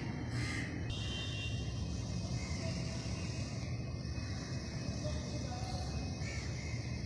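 Steady low outdoor rumble with a high hiss. Crows caw twice at the start and once more near the end.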